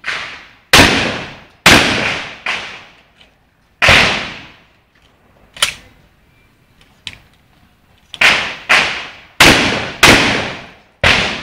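Fabarm semi-automatic shotgun firing: about five shots in quick succession, each with a long ringing tail. Then a pause of about four seconds with a couple of sharp clicks as shells are loaded, and about five more shots in a fast string.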